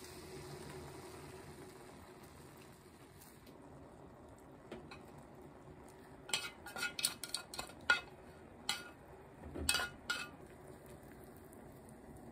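Chopsticks and a metal frying pan clinking and scraping against a ceramic pot as stir-fried pork and mushrooms are pushed off the pan into it: a quick run of sharp taps and clinks from about six seconds in to about ten, over a faint steady hiss.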